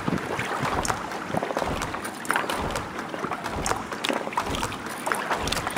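Water splashing and slapping around a kayak in a quick run of small splashes, with wind rushing over the microphone.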